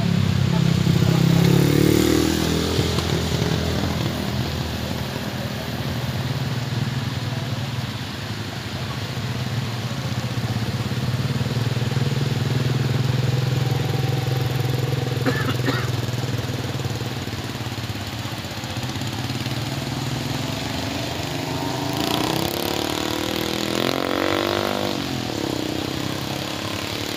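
Road traffic on a wet road: motorcycles and other vehicles going by over a steady low engine hum. Late on, a passing engine rises and falls in pitch as it goes by.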